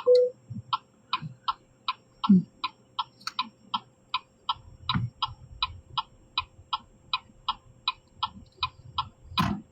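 Car turn-signal indicator ticking steadily at about three clicks a second, on for a left turn.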